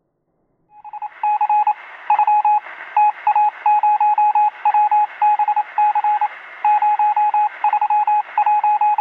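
Morse code: a single steady tone keyed on and off in irregular groups of short and long beeps, as from a radio, over a faint hiss. It starts about a second in.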